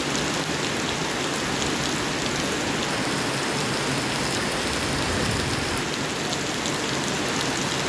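Steady heavy rain falling on a surface, an even hiss with many small drop ticks.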